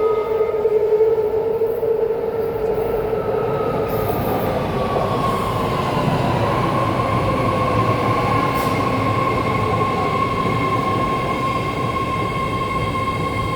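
BART train pulling into the station and slowing to a stop, with a steady rumble under a high whine that drops in pitch over the first few seconds and then holds level.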